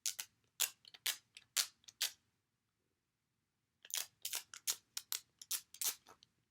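Sharp, crisp clicks and crackles from handling a screen-protector kit's small plastic pieces and packaging. There are about five clicks, a short pause, then a quicker run of about ten.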